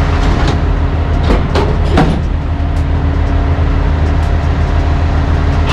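Diesel engine idling with a steady low drone. A few short knocks and clicks come in the first two seconds.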